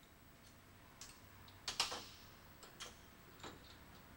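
A handful of light metal clicks and clinks as a bent screwdriver shaft is handled and taken out of a bench vise, the loudest a quick pair just under two seconds in.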